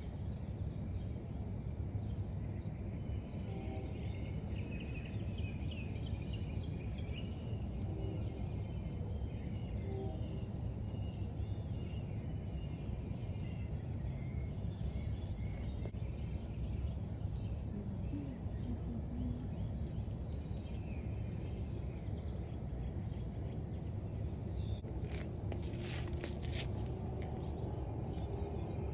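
Backyard ambience: a steady low rumble with small birds chirping now and then, and a brief run of sharp clicks near the end.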